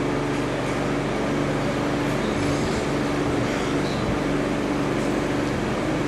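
A man's voice chanting a melodic recitation into microphones, with long held notes.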